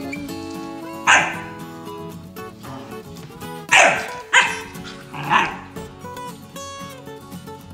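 Siberian huskies play-barking: four short, sharp barks about a second in, then three more close together in the middle.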